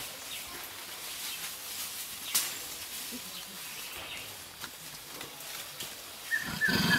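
Quiet rainforest ambience with faint rustling and light clicks in the undergrowth, and one sharper snap about two and a half seconds in. Near the end a person's voice starts.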